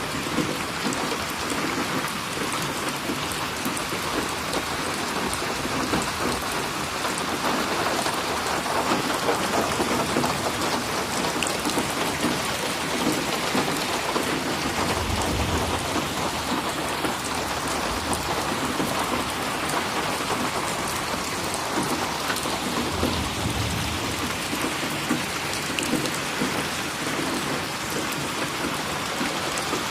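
Steady rain falling and splashing on a surface, a dense even patter throughout. Two brief low rumbles come through, about halfway through and again later.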